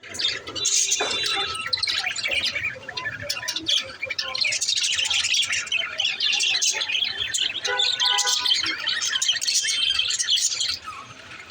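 Budgerigars chattering and warbling: a dense, continuous run of quick chirps, with a short pitched call about eight seconds in, thinning out near the end.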